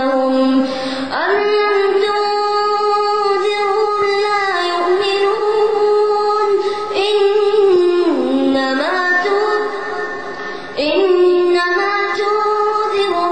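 A boy chanting Quran recitation into a microphone, melodic and drawn out, holding long ornamented notes. New phrases begin with a rising glide about a second in and again near the end.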